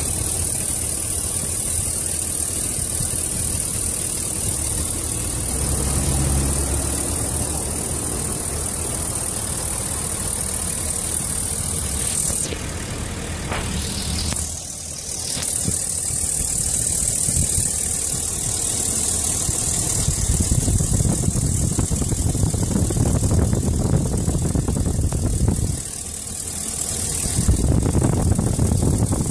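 Truck engine idling steadily, heard from the open engine bay.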